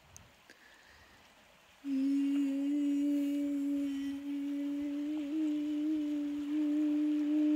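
A voice humming one long, steady low note that comes in about two seconds in and is held, wavering slightly in pitch.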